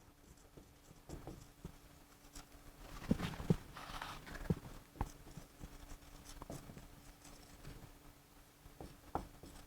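Faint scattered taps and scratches of a pen writing, over a faint steady hum.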